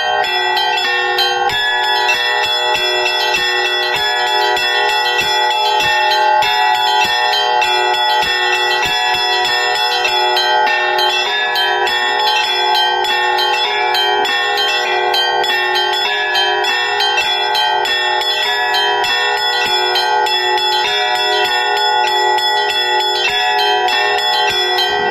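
Russian Orthodox monastery church bells rung in a continuous peal (zvon), with many bells struck in quick, overlapping succession and their tones ringing on. Mostly middle and higher bells are heard, with no deep bass bell.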